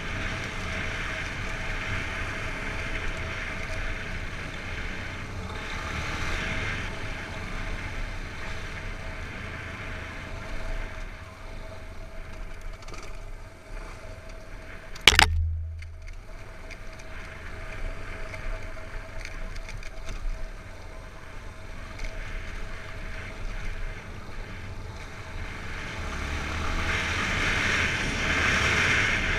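Yamaha XTZ 250 Lander's single-cylinder four-stroke engine running while riding, with wind rushing over the GoPro microphone. A single sharp knock comes about halfway through, and the wind grows louder near the end.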